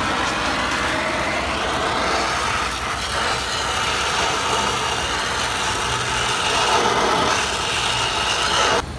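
Oxy-fuel welding torch flame hissing steadily while it heats a cast bronze gate for fluxing with borax. The sound stops abruptly near the end.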